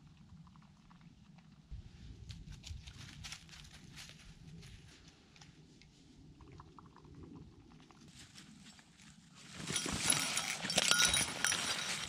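Faint scraping and tapping of a spoon stirring inside a small backpacking stove pot. Near the end, a loud dense crunching and rustling of dry fallen leaves takes over.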